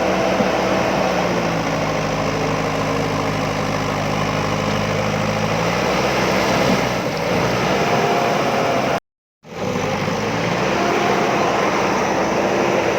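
A JCB backhoe loader's diesel engine running steadily, its pitch shifting a little as the machine works. The sound cuts out completely for about half a second around nine seconds in, then resumes.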